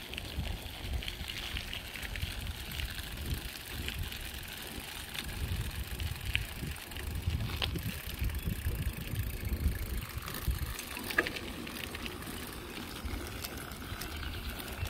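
Bicycle tyres rolling over a gravel path: a steady crunching hiss with scattered small clicks, over a low rumble of wind on the microphone.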